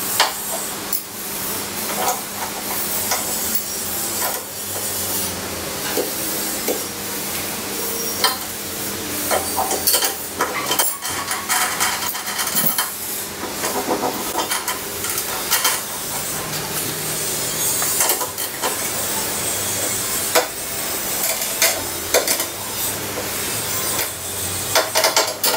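Nuts being run onto bolts and tightened with spanners and a ratchet spanner: irregular small metal clicks, clinks and scrapes over a steady hiss.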